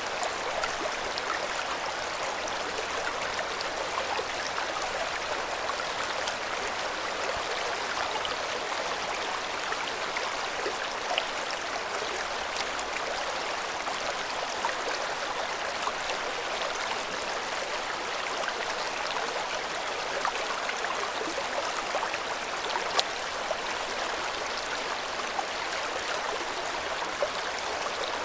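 River water flowing steadily over stones, an even rushing and babbling with small splashes.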